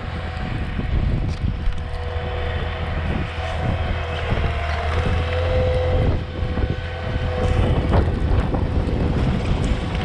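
Heavy equipment engine running steadily under load, with a steady whine over it and wind buffeting the microphone.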